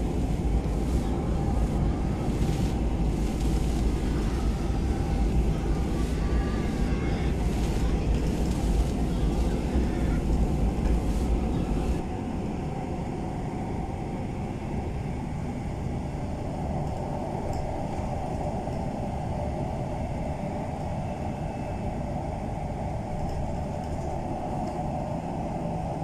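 Road and wind noise from a moving car: a dense low rumble with gusty hiss. About twelve seconds in the sound changes abruptly to a quieter, thinner rumble.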